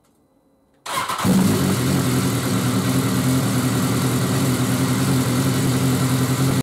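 A 2016 BMW S1000R's inline-four engine is cranked and catches about a second in, then idles steadily. It is being started after an oil and filter change to circulate the new oil before the level check.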